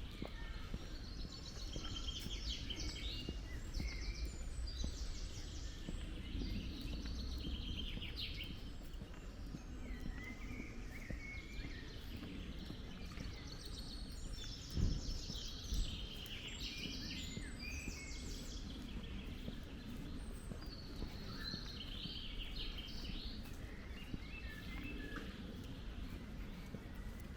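Songbirds singing in short, repeated phrases throughout, over a low rumble of wind. Two brief knocks about halfway through.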